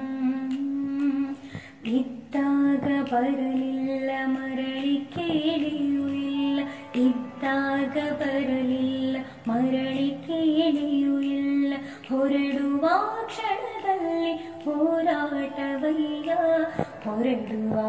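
A woman singing a slow Kannada song solo, holding long notes with ornamented bends in pitch and short breaths between phrases.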